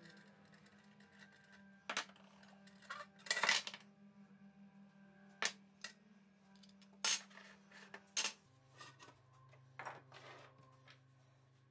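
Metal parts of an old sheet-metal kitchen scale clinking and knocking as the pan platform and its cross-shaped support are lifted off and set down on a wooden workbench: about half a dozen sharp clinks a second or two apart, over quiet background music.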